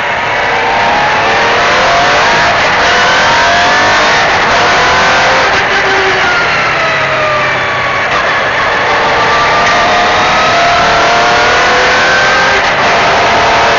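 MG Metro 6R4's 3.0-litre V6 rally engine revving hard under acceleration, its pitch climbing, falling back and climbing again as the car is driven flat out along the stage.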